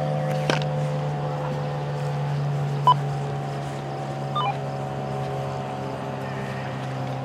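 Darley STH-10 outdoor warning siren winding down after its full-alert steady tone: a low hum with several higher tones above it, all sliding slowly down in pitch. Short sharp chirps cut in about half a second, three seconds and four and a half seconds in.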